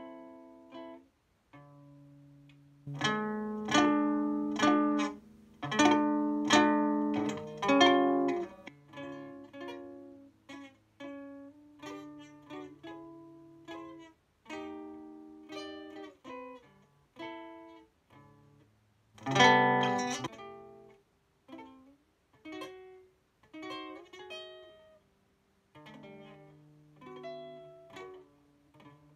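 Solo acoustic guitar played with the fingers: single plucked notes and chords, each ringing and dying away. Louder, fuller chords come about three to eight seconds in and again around twenty seconds, with quieter picked notes in between.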